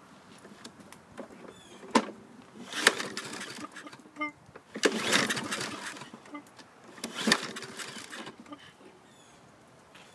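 Three pull-start attempts on a Husqvarna LC221A mower's Briggs & Stratton 675EXi engine. Each is a sharp click followed by about a second of cranking noise, and the engine turns over without firing. The owner suspects the blade-brake safety cable may be holding the kill switch on.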